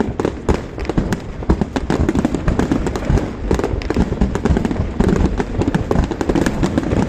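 Aerial fireworks: many shells bursting in quick succession, their bangs overlapping over a constant low rumble, with no pause.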